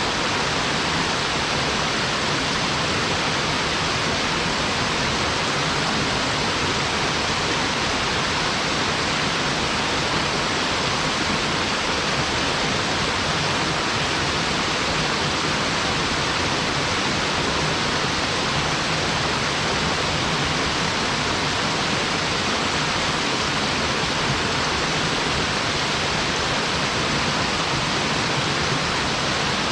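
Small mountain waterfall falling in three streams into a pool, a steady, even rush of water with no change in level.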